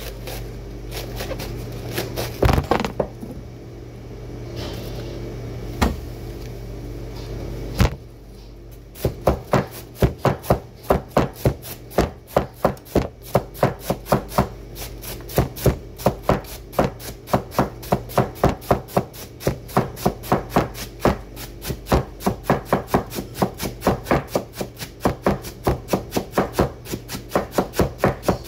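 Cleaver shredding a head of cabbage on a wooden chopping board. A few scattered knocks come first, then from about nine seconds in a quick, even run of chops, about three or four a second.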